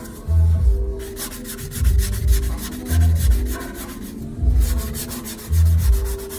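Hand sanding of a Venetian plaster repair: abrasive rubbing back and forth over the patched plaster in repeated strokes to smooth it flush.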